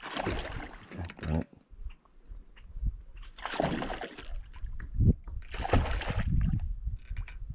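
Water splashing beside a kayak in three bursts of about a second each, spread a couple of seconds apart, over a low rumble.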